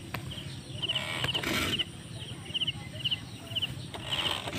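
A short chirping call of three or four quick notes repeats about twice a second, with a brief hiss about a second in and another near the end.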